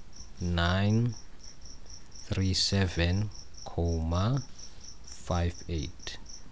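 An insect chirping steadily in the background, a short high chirp repeating about four times a second, under several short stretches of a voice.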